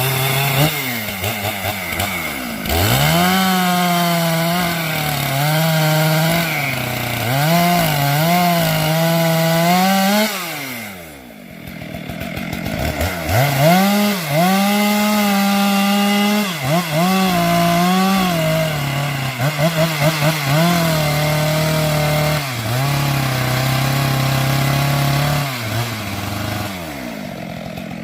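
Stihl two-stroke chainsaw at high revs cutting through coconut wood, its pitch sagging and recovering again and again as the chain bites. About ten seconds in it drops briefly toward idle, then revs up and cuts again.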